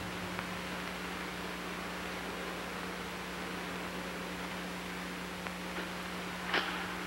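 Steady low hum and hiss of an old film soundtrack, with a few faint ticks and a sharper knock about six and a half seconds in.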